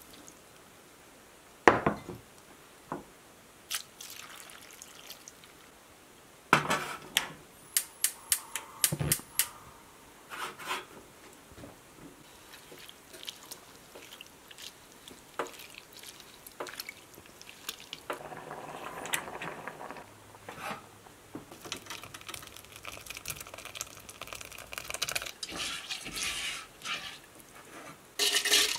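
Kitchen food-prep sounds: highbush cranberries tumbling wet into a steel pot and being mashed with a metal potato masher, with sharp clinks of metal on the pot and dripping. A quick run of clinks comes about seven seconds in, and a longer scraping stretch near the end.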